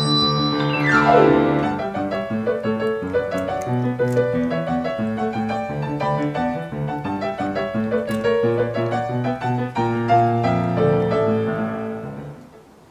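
Piano backing music, with a fast downward glissando about a second in, fading out near the end.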